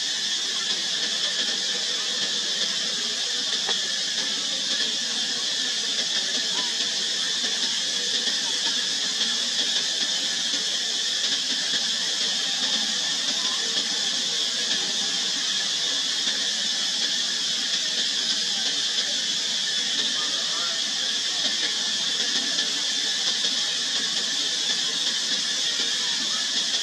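Cicada chorus: a steady, shrill high-pitched drone that holds at an even level throughout.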